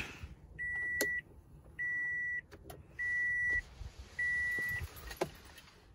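Toyota Tundra dashboard warning chime sounding four steady high beeps, each about half a second long and evenly spaced about a second apart, with a few faint clicks between them.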